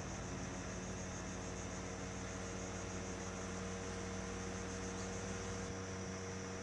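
Steady low hum of a boat's engine running at an even pace, with a continuous high, even drone of insects over it.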